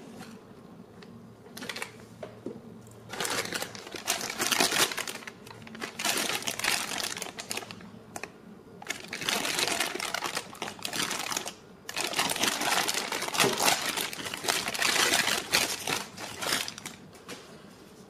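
Thin clear polyethylene (LDPE) plastic bag crinkling as hands unwrap a plastic toy figure from it. The crinkling comes in four long spells with short pauses between.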